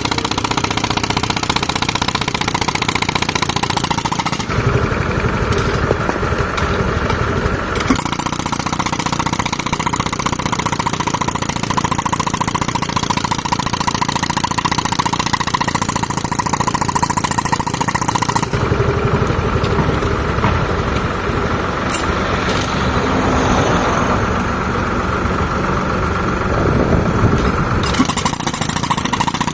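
Tractor engine driving an air compressor, running steadily, while a pneumatic rock breaker works in stretches: its rapid hammering and hissing air drop away for a few seconds about four seconds in and for about ten seconds from the middle, then pick up again.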